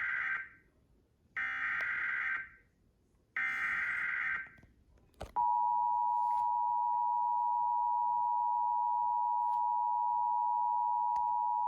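Emergency Alert System broadcast over a TV speaker: the SAME header's three harsh digital data bursts, each about a second long and about two seconds apart, the first already under way. After a click about five seconds in comes the steady two-tone EAS attention signal (853 and 960 Hz), which announces a severe thunderstorm warning.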